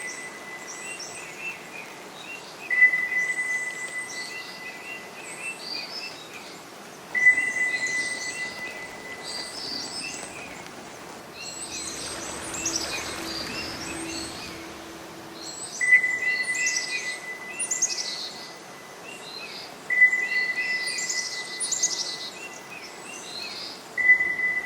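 Several wild birds calling and chirping outdoors. A steady, high whistled note starts sharply and fades, repeating every few seconds. Around halfway a soft hiss with a faint low hum rises briefly under the birdsong.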